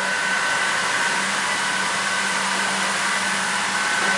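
Steady hum and hiss of tank-wash bay machinery (pumps and blowers), with a constant high whine over it.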